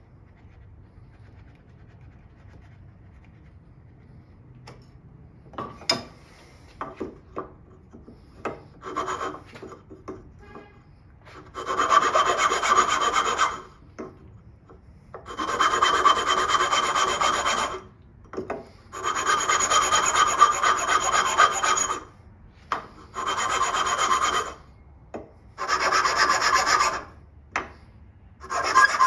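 A tool working wood in six runs of two to three seconds each, scraping and rasping, with light taps and knocks before the first run.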